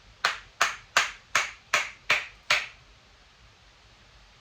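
Hammer striking a tool seven times, about three blows a second with a short metallic ring on each, knocking a cut-out plug of the door loose from the hole-cutting bit.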